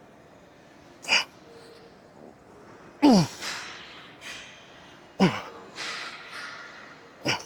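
A person's short, forceful exhales and grunts from effort, four of them about two seconds apart, the middle two falling in pitch and trailing off into breath.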